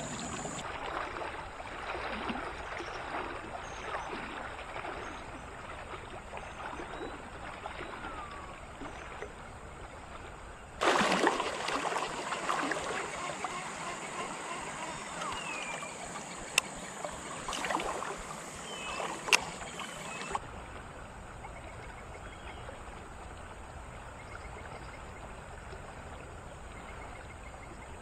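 River water flowing and gurgling around a wading angler. A louder, splashier stretch runs through the middle, with two sharp clicks in it.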